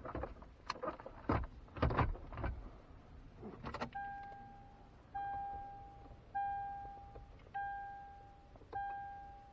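A few sharp plastic clicks and knocks of the dash panel being handled, then from about four seconds in the 2006 Toyota 4Runner's dashboard warning chime dinging five times, about a second apart, each ding fading out.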